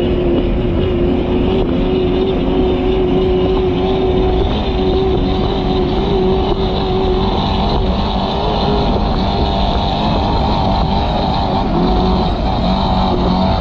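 Off-road trophy truck's engine running hard as the truck drives across loose desert sand, a loud, steady engine note whose pitch wavers and shifts a little about halfway through.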